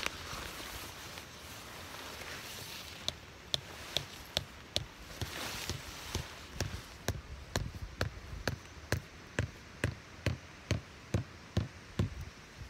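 Nylon tent fabric rustling as it is handled. From about three seconds in, a steady run of sharp strikes about two a second: tent stakes being hammered into the ground.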